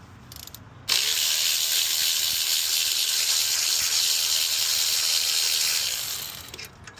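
A loud, steady hiss starts suddenly about a second in, holds for about five seconds, then fades out near the end.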